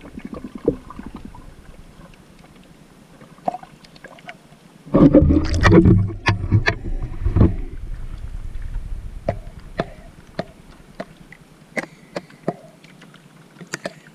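Water against a waterproof camera housing as it is carried through the water: faint clicks and muffled water noise at first, then a loud splashing, sloshing rush about five seconds in as the camera breaks the surface, settling into lighter lapping with sharp clicks.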